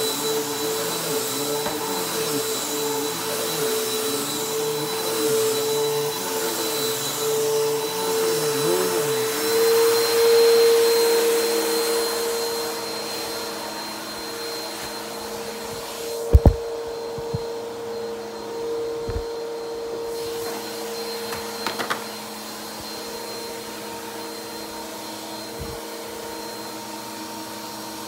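Bissell PowerForce Helix upright vacuum cleaner running, a steady motor hum with airflow hiss. Its pitch wavers for the first several seconds, then holds steadier as it grows quieter. A few sharp knocks come in the second half, the loudest about sixteen seconds in.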